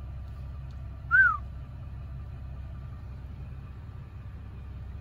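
A single short whistle about a second in, rising then falling in pitch, over the steady low hum of a car engine idling.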